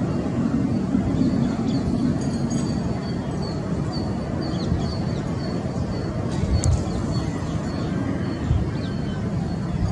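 Low, steady rumble of an Airbus jet airliner's engines heard from a distance as it comes in to land, with a bird chirping over it in short, high, repeated calls.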